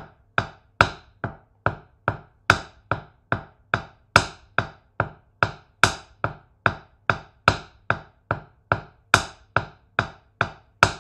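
Wooden drumsticks tapping paradiddles (right-left-right-right, left-right-left-left) on a practice pad at a steady, slow tempo. There are about two and a half taps a second, and every fourth tap is louder.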